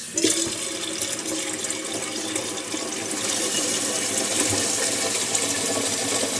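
Kitchen tap turned on, water running in a steady stream into a tea kettle, filling it.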